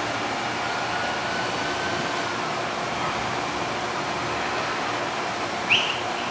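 Steady mechanical hum and hiss of a standing Amtrak passenger train idling at the platform, with a faint steady whine. Near the end comes one short, high, slightly rising squeak.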